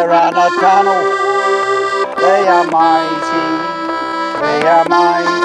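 Piano accordion playing a chorus tune with a steady bass, with a man and a woman singing along.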